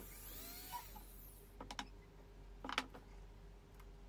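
Light clicks and knocks of pine pieces and a cordless drill being handled on a wooden workbench, in two short clusters, the second one louder. The drill motor is not running. Faint rising-and-falling calls are heard in the background.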